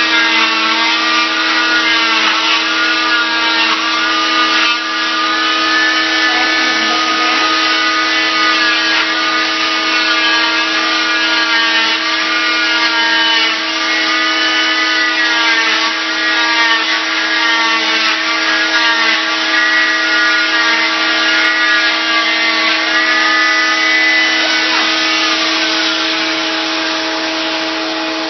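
Cast saw cutting through an arm cast, running with its dust-extraction vacuum: a steady motor hum under a whine that dips and recovers in pitch every second or two as the blade is pressed into the cast.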